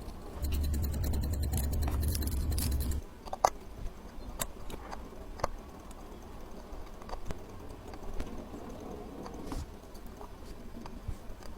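A small motorised tool whirs steadily for about two and a half seconds and cuts off sharply. Scattered light clicks and taps of small metal watchmaking tools follow.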